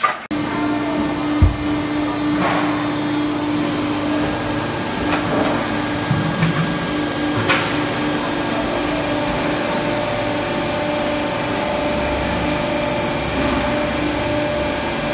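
Large stamping press running with a steady motor hum and a constant mid-pitched tone, a higher tone joining about halfway through, and a few light knocks early on.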